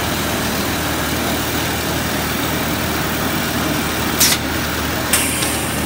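Stone-coated roof tile roll forming machine running with a steady mechanical drone and low hum, with two sharp knocks about four and five seconds in.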